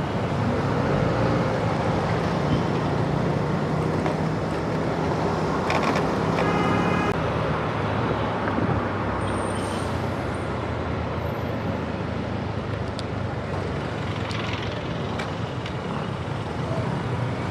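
Motor vehicle running steadily with road noise and a constant low engine hum. A brief pitched sound, like a beep or horn, comes about six seconds in.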